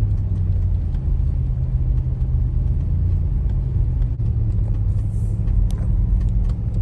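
Steady low rumble of a vehicle running, with a few faint clicks.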